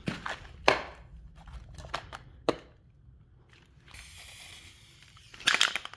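Paint container running nearly empty, spitting paint out in sharp irregular splats and spurts, with a short steady hiss of air about four seconds in and a loud cluster of sputters near the end.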